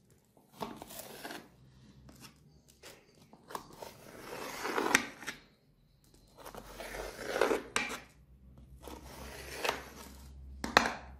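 A long knife cutting through a freshly baked corn-flour basbousa cake in a metal baking pan, in several separate scraping strokes a couple of seconds apart.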